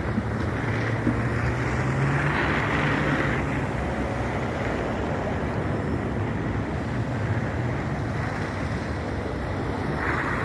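Blizzard wind blowing steadily across the microphone, with a low engine hum under it, strongest about one to three seconds in.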